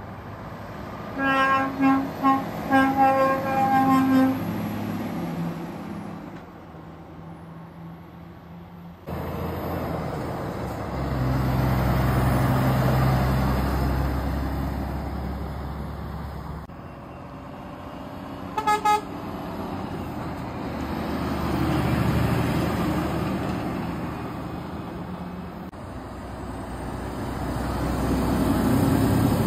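Articulated tipper lorries pass close by one after another, their diesel engines and tyres swelling and fading. A lorry's air horn sounds in several short blasts a second or so in, and once more briefly about two-thirds of the way through. A Mercedes-Benz Actros tipper is passing near the end.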